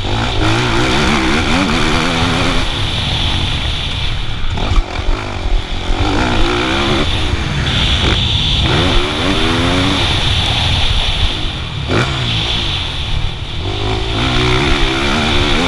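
Motocross bike engine revving up and dropping back again and again as it is ridden hard round the track, over a heavy low rumble. Two sharp knocks come about five and twelve seconds in.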